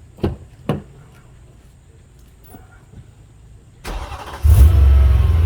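Two short sharp knocks near the start, then the BMW M3's S65 V8 is cranked and fires about four seconds in, jumping to a loud burst of revs and settling into a steady idle.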